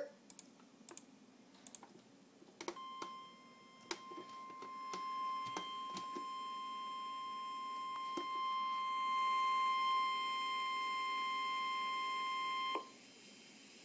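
NOAA Weather Radio warning alarm tone at 1050 Hz: a single steady tone lasting about ten seconds that cuts off suddenly. It is the signal that a warning message follows. A few faint clicks come before the tone starts.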